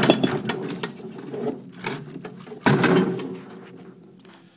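Hands working a part loose on a small refrigerator compressor: a run of knocks, clicks and scrapes, with one louder clunk about two-thirds in, then dying away.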